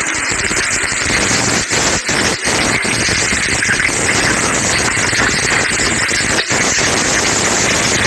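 Steady loud hiss of noodles and vegetables sizzling in a wok over a high-pressure gas burner, broken by a few very brief dropouts.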